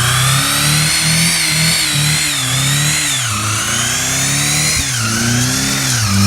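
Honda Civic burnout: the engine is held at high revs that waver up and down, with the spinning tyres squealing in high, gliding tones that rise and fall with it.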